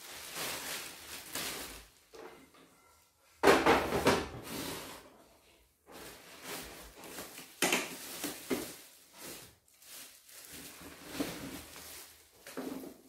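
Clear plastic wrapping crinkling and rustling as a packed embroidery machine and its parts are unwrapped and lifted out of a cardboard box, in uneven bursts of handling noise. The loudest is a sudden burst about three and a half seconds in.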